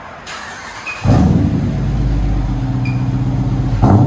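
Dodge Durango R/T's 5.7 L Hemi V8 starts up about a second in and runs at a steady fast idle, through an exhaust with Vibrant resonators in place of the factory suitcase muffler, an X-pipe and the rear resonators deleted. There is a brief sharp noise near the end.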